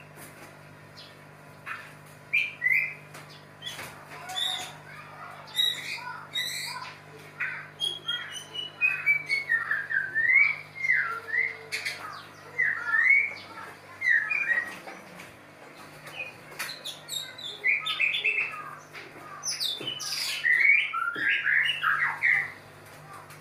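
White-rumped shamas of a mating pair calling: a quick run of varied whistles, chirps and harsh squawks, busiest in the middle and again near the end.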